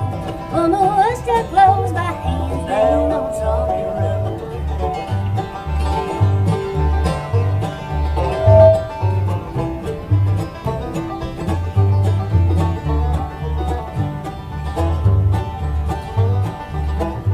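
Bluegrass band playing an instrumental break between verses: plucked banjo, guitar and mandolin over upright bass notes on a steady beat.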